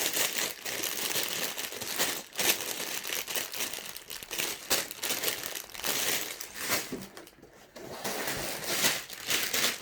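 Plastic Lego parts bags crinkling and rustling as they are handled and set down, with a brief lull about seven seconds in.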